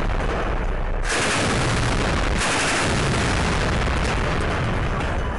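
Heavy machine gun mounted on a pickup technical firing long, continuous automatic bursts, the loud shots running together without a break.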